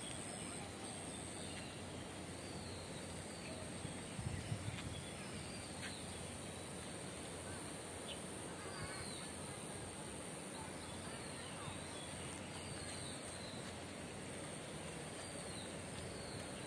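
Quiet park ambience: birds giving short falling chirps every second or two over a steady high-pitched insect drone, with a brief low rumble about four seconds in.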